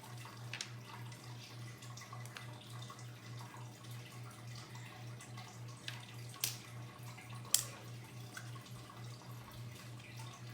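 Plastic Play-Doh tools and dough being handled on a table: scattered light clicks and taps, with two sharper clicks about a second apart past the middle, over a steady low hum.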